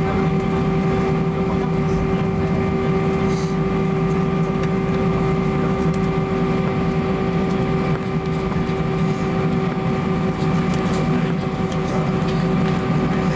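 Airbus A320 engines running at idle during taxi, heard inside the cabin from over the wing: a steady hum with a constant whine.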